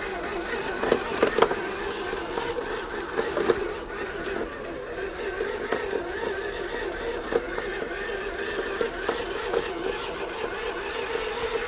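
Fayee FY004A RC 6x6 truck's electric drive motor and gearbox whining as it drives, the pitch wavering with the throttle. Dry leaves and twigs crackle under the tyres in scattered sharp clicks, loudest about a second in.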